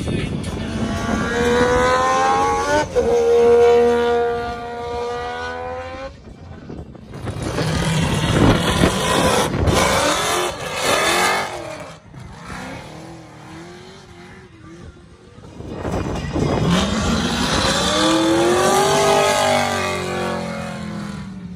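Drift cars' engines revving hard at high rpm, in several short clips, the pitch climbing and dropping with throttle and gear changes, with tyre squeal. One of them is a V8 ute with a supercharger poking through its bonnet.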